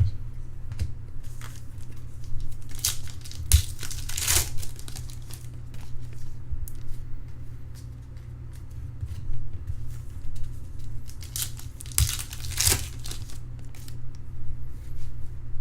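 Trading card pack wrappers being torn open and crinkled while cards are handled, in scattered short rustles with two louder tearing stretches, about three seconds in and about twelve seconds in. A steady low hum runs underneath.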